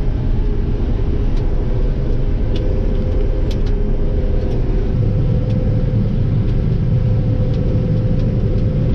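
Combine harvester running while cutting soybeans, heard from inside the cab: a steady low drone with a held whine and light ticks about once a second. The low rumble grows heavier about halfway through.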